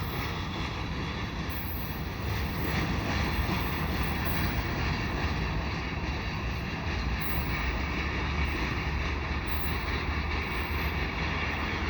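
Loaded freight cars rolling past on the rails: a steady rolling noise from the wheels.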